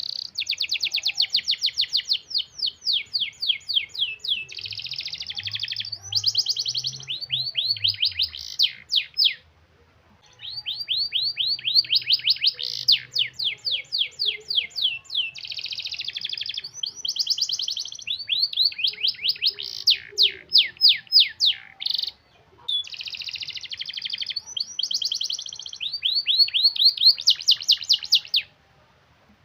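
Domestic canary singing long, tight rolling trills: fast runs of repeated sweeping notes, with a short pause about nine seconds in and another near the end.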